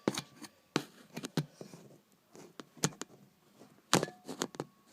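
Irregular sharp clicks and taps of small hardware being handled: alligator clips being fumbled onto a hand-held 9-volt battery. The loudest knocks come in a quick cluster about four seconds in.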